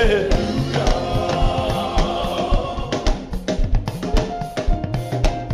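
Upbeat Nigerian praise-and-worship dance music: a drum kit keeps a steady beat under sustained chords. A sung note falls away at the start.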